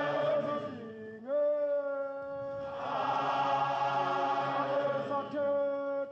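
Background music of voices singing long held notes in a chant, sliding up to a new held note a little over a second in and changing note again about halfway and near the end.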